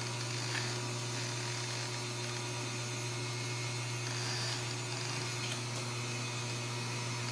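Steady low electrical hum, like mains hum, with a few faint ticks.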